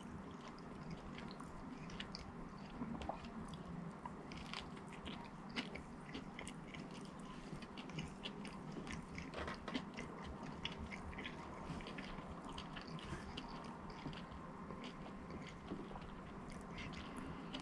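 A man biting and chewing fast food close to the microphone: a quiet run of many small, irregular mouth clicks and crunches.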